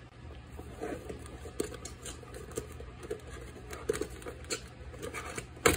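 Cardboard action-figure box being handled and its end flap opened: scattered light rustles and taps of paperboard, with one sharp snap near the end.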